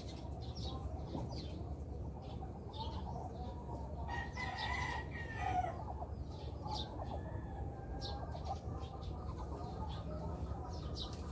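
A rooster crowing once, about four seconds in, over short high chirps that repeat every half second or so.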